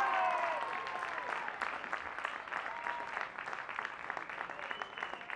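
Spectators clapping and cheering a goal. High shouts rise over the clapping at the start, and steady clapping with an odd call continues after.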